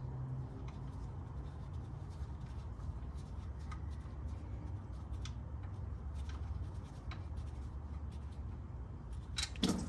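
Faint clicks and rubbing of a gloved hand unthreading an oil-pan drain plug with the fingers, over a steady low hum. A short, louder sound comes near the end, as the plug comes free.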